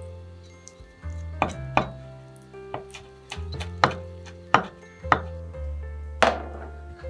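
Kitchen knife chopping soft pickled plum (umeboshi) on a wooden cutting board: about six separate, unevenly spaced knocks of the blade on the board, then a louder knock with a short ring near the end.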